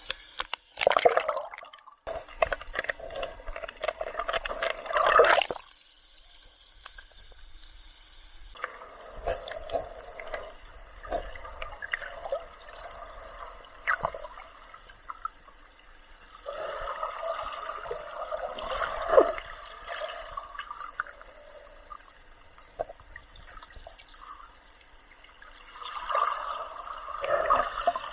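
Water gurgling and sloshing around a snorkeler's camera at or just below the surface, in irregular bursts with quieter spells between.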